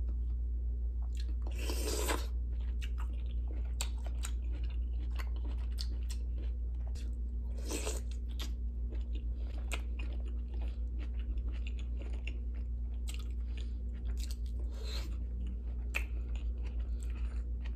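Close-up chewing and mouth sounds of someone eating mussels, with many small wet clicks and two louder noisy bursts about two and eight seconds in, over a steady low hum.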